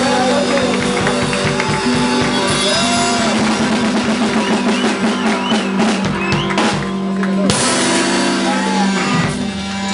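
Rock music with a drum kit, playing steadily and loud.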